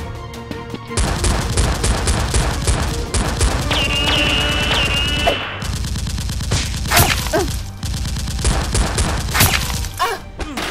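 Rapid bursts of automatic-gunfire sound effects standing in for Nerf blaster fire, starting about a second in with a brief break about halfway. A high, held tone is heard about four to five seconds in.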